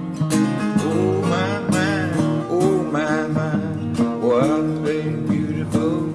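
Country-style acoustic song: a strummed acoustic guitar with a bending melody line over it.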